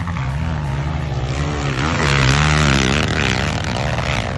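Quad ATV engine revving hard, its pitch rising and falling again and again as the throttle and load change.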